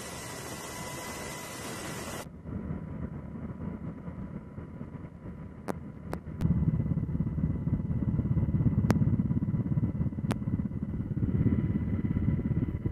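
Steady hiss with a thin high whine, then after a sudden cut a low engine rumble with wind from an aircraft in flight. The rumble grows much louder about six seconds in, and a few sharp clicks sound over it.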